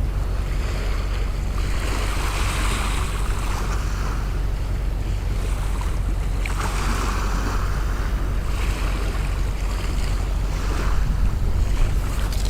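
Sea waves washing in and breaking, in swells every few seconds, with wind rumbling on the microphone.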